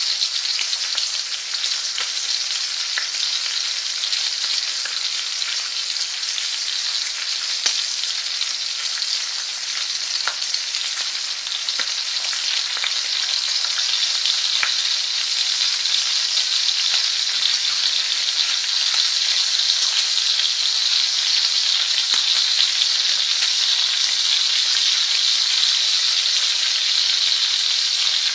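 Food frying: a steady sizzle scattered with small crackles and pops, a little louder in the second half.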